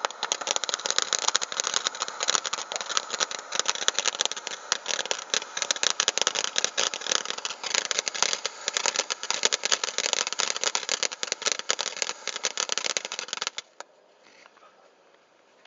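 Solar Flair consumer fireworks fountain spraying sparks: a loud, dense crackling hiss that cuts off suddenly about thirteen and a half seconds in as the fountain burns out.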